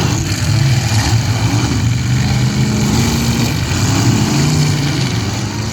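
Several demolition derby cars' engines running and revving together in a loud, steady din, their pitches rising and falling.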